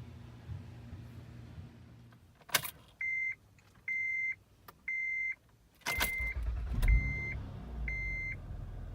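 A click, then a car's warning chime beeping six times at about one beep a second; about six seconds in, the Acura TL's V6 engine cranks and catches, then runs at a steady idle under the last beeps.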